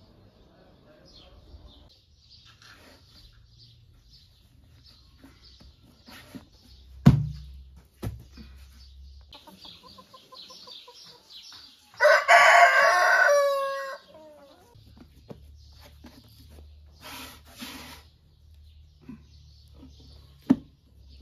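A rooster crows once, near the middle: a loud call of about two seconds that ends on a falling note. A sharp knock sounds about a third of the way in and another near the end, with faint small-bird chirps throughout.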